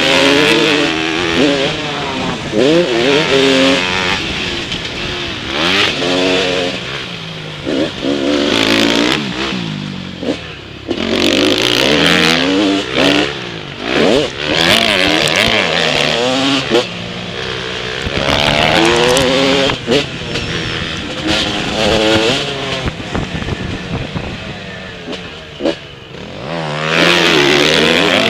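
Motocross bike engine revving hard under throttle, its pitch climbing repeatedly through the gears and falling away when the throttle is shut, with wind and dirt hiss, heard close up from the rider's helmet.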